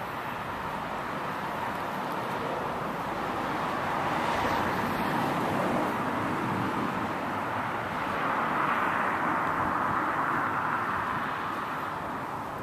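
Road traffic noise: passing vehicles swell and fade twice, a steady tyre-and-engine hiss with no single engine standing out.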